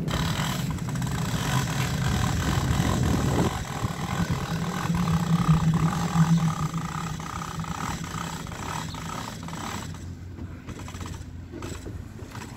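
Motor vehicle engine running at a steady low idle. The sound is loudest for the first several seconds and drops off about seven seconds in.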